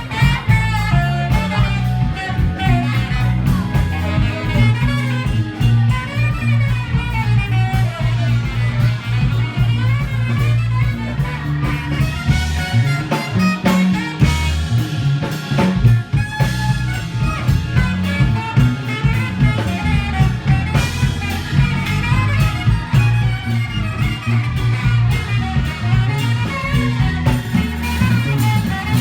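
A live band playing jazz, with drum kit, a heavy low bass line and guitar heard.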